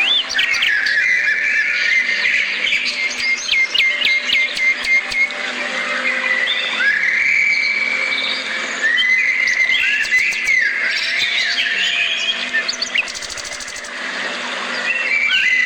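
Several birds chirping and twittering together, with short rising and falling calls. A quick run of repeated chirps comes about three seconds in.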